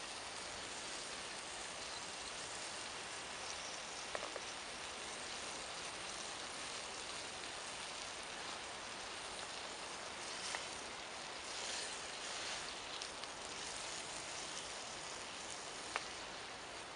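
Coconut milk and vegetables sizzling and simmering in a steel wok over campfire embers, a steady hiss with a few faint clicks.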